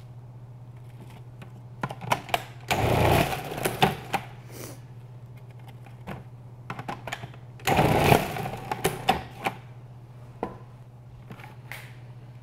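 Food processor motor running with its grating disc. Chunks of cabbage are shredded loudly as they are pushed down the feed tube, twice, about 3 and 8 seconds in, with plastic clicks and knocks from the pusher and lid.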